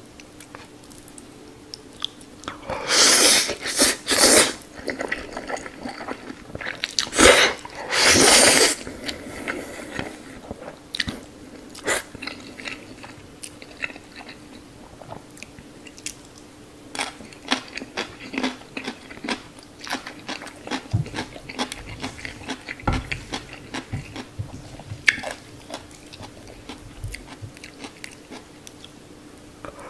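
Close-miked eating of instant noodles: two loud slurps in the first nine seconds or so, then steady chewing with many small wet clicks and smacks.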